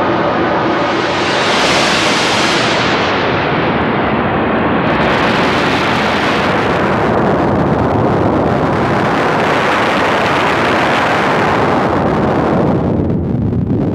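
Noise Engineering Sinc Iter synthesizer oscillator in its noise mode, a loud rushing noise whose brightness is swept up and down by hand-turned knobs. It brightens about two seconds in, dulls, jumps brighter around five seconds, dips and rises again, then turns dull near the end.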